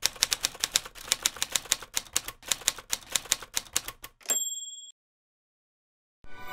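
Typewriter sound effect: a quick, even run of keystroke clacks, about six a second, ending about four seconds in with a single bell ding at the carriage return.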